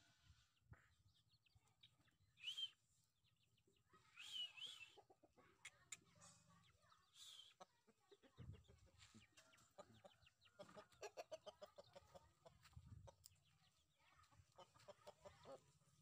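Chickens clucking faintly, with three short high-pitched calls in the first half and quick runs of clucks, about five a second, from about ten seconds in and again near the end.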